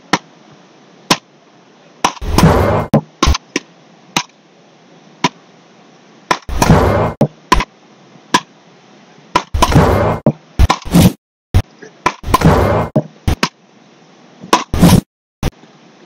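Beach paddle-ball rally: paddles striking the ball in sharp cracks about once a second, with several louder, longer noises in between.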